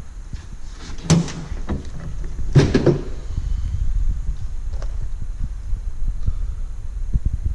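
Two short bursts of knocking and clattering, one about a second in and a louder one around three seconds, over a steady low rumble.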